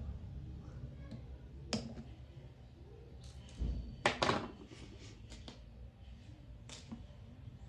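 A few sharp clicks and knocks as a pair of blue-handled cutting pliers is handled at a circuit board and set down on a workbench. The loudest cluster comes about halfway through.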